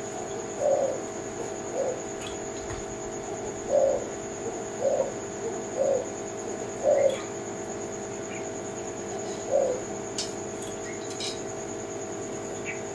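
Spotted dove (tekukur, Kelantan type) cooing: a series of about seven short, low coos at irregular intervals, with a longer pause past the middle.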